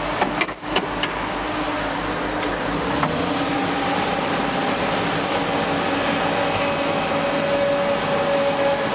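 Samsung 350-size long-reach excavator's diesel engine and hydraulics running, heard from inside the cab, with a steady whining tone. There are a few sharp clicks and knocks in the first second, and the engine note changes about three seconds in.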